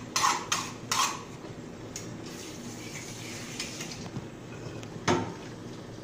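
Kitchen clatter of dishes and utensils: a few quick knocks in the first second, then a steady low background, and one sharp clunk of a dish about five seconds in.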